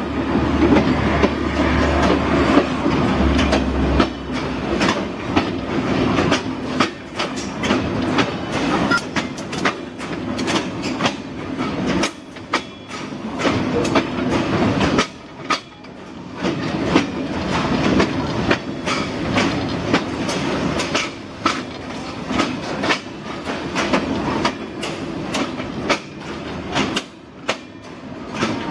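Caboose wheels running over jointed track: a steady rumble with a quick, uneven run of clicks as the wheels cross the rail joints.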